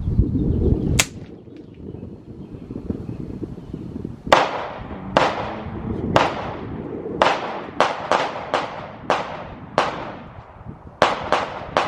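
Rifle gunshots: a single sharp crack about a second in, then a string of about a dozen shots from about four seconds in, quickening so that some come less than half a second apart.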